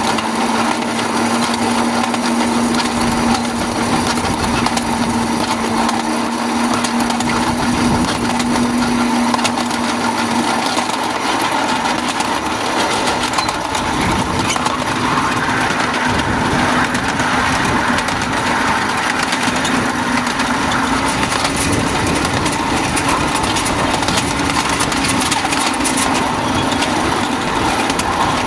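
Miniature-gauge train running along the track: steady clattering and rattling of the wheels and cars over the rails, with a steady engine hum underneath that rises slightly in pitch near the end.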